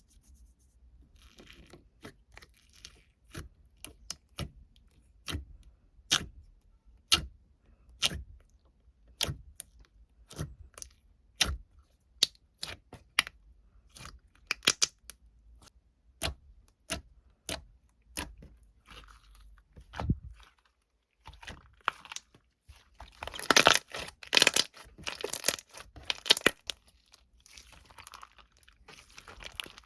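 A run of sharp, crisp clicks or crunches about one a second, then a few seconds of dense crinkling and rustling near the end.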